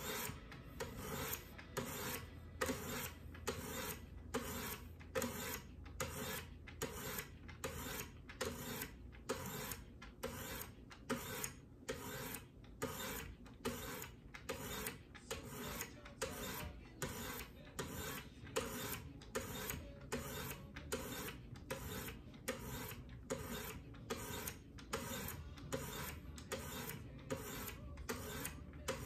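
Wicked Edge sharpening stone scraping along the blade of a WE Knives Balaenoptera in alternating strokes, a steady rhythm of about three strokes every two seconds. The strokes are raising a burr along the knife's second (left) side.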